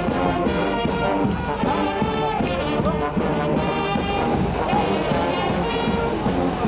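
A French banda brass band playing a lively tune: sousaphones, saxophones and trumpets over drums and cymbals keeping a steady beat.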